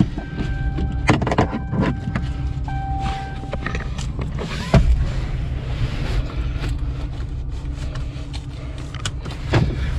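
Truck engine running, heard from inside the cab, with scattered clicks and knocks and a sharp thump about five seconds in. A steady electronic tone sounds on and off through the first four seconds.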